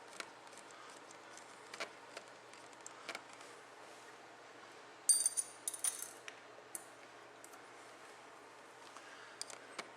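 Scattered light clicks from a small wrench working the jam nuts on a motorcycle's throttle-cable adjusters, with a short run of ringing metal clinks about halfway through.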